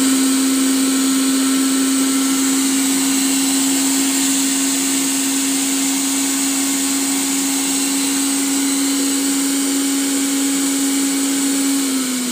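Agaro 1000 W nutri blender motor running at speed, grinding roasted dried red chillies into powder: a steady hum with a hiss of the blades working through the chilli. Near the end the motor's pitch drops slightly as the speed button is pressed.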